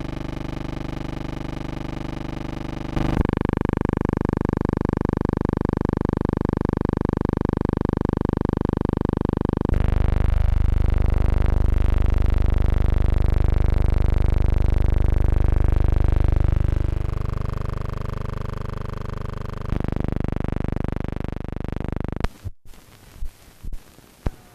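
Steady held electronic-sounding tones, like sustained synthesizer chords, changing abruptly to a new chord three or four times. Near the end they cut off, leaving a few sharp clicks.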